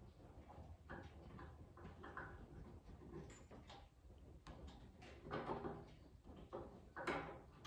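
Faint scraping and clicking of a hand tap and tap wrench being turned in a drilled hole in a steel bracket, with louder scrapes about five and seven seconds in; the 6 mm tap is not grabbing and cutting threads, the hole being too big for it.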